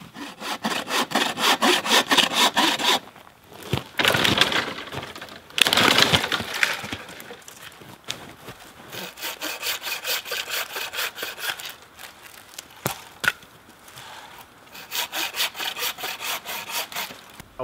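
Bow saw cutting through a dead branch for firewood in quick back-and-forth strokes. The strokes come in runs, broken by a few short pauses.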